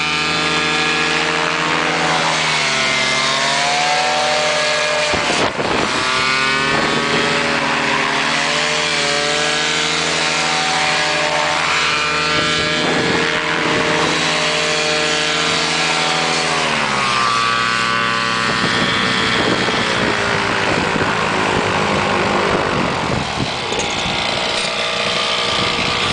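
Paramotor engine and caged propeller on a ski trike running loud, its pitch falling and rising several times as the throttle is eased and opened.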